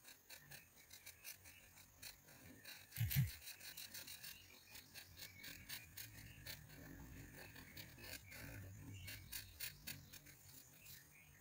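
Felt-tip marker scratching across paper in quick short colouring strokes, with a low thump about three seconds in.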